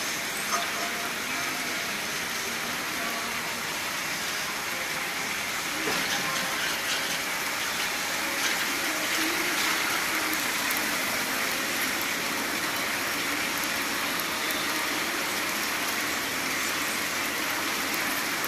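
Glass-sheet washing machine running under test, with a steady rush of spraying water and a few light clicks.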